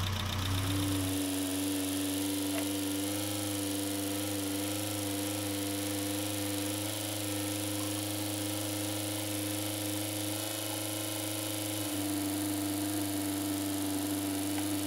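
Renault Trafic's freshly swapped 2165cc four-cylinder engine idling as a steady, even hum, run to circulate coolant while the cooling system is bled.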